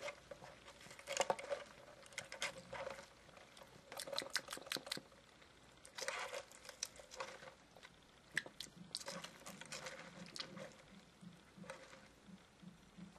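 Faint sipping through a plastic straw from a fountain-drink cup of cola with ice: short clusters of wet, clicky sucking sounds every second or two.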